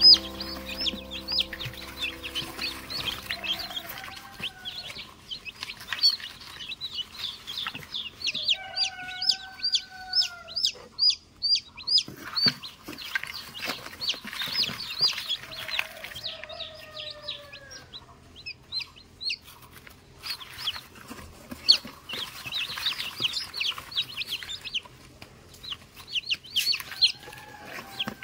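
Newly hatched chicks peeping constantly, a dense crowd of short, high cheeps. A few times a longer, lower, arching call rises above them.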